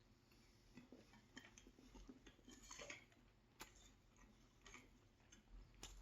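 Faint chewing of a mouthful of meat pie, with scattered soft clicks of the mouth and jaw.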